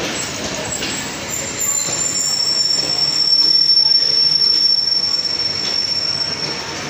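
Passenger train coaches rolling past close by along a station platform. A steady high-pitched metallic squeal from the train's running gear starts about two seconds in and holds to the end, over the rumble of the wheels.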